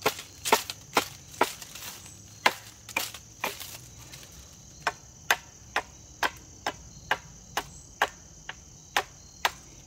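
Hatchet chopping at the end of a wooden stick to shave it down: sharp, even chops about two a second, with a short break a little before halfway.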